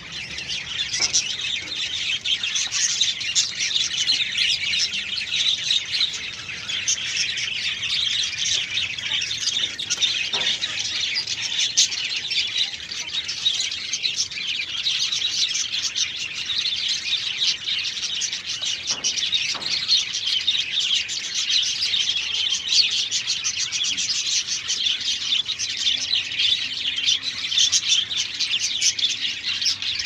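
Dense, continuous high-pitched chirping and chattering of many small birds, with no let-up.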